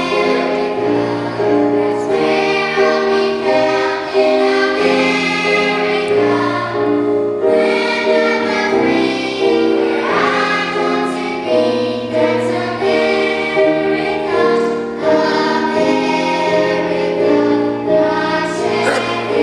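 Children's choir singing a patriotic song with instrumental accompaniment.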